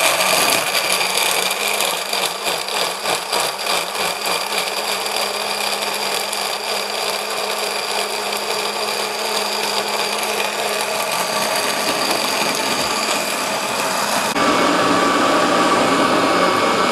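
Countertop blender running continuously, grinding green chillies, shallots, garlic and fried dried shrimp with a little water into a paste. The sound is uneven for the first few seconds as the chunks are chopped, then smooths into a steady whir, and steps louder about 14 seconds in.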